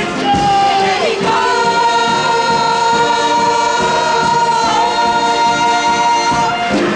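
Stage chorus of men and women singing together, holding one long chord as the song's closing note; a short downward slide in pitch comes about a second in, just before the held note.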